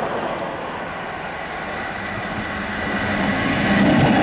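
Two SNCF BB 75000-class diesel-electric locomotives working in multiple unit, running under power as they approach with a freight train. The sound grows louder as they come close, with a steady low drone and a higher whine, and rises sharply as the locomotives draw level near the end.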